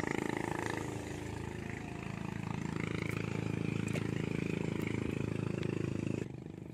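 A small engine running steadily, with a faint click about four seconds in; the sound drops away suddenly near the end.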